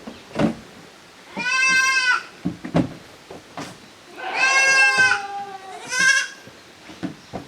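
Young kid goats bleating: three high-pitched calls, the middle one longest, with a second goat calling under its end. A few short knocks sound between the calls.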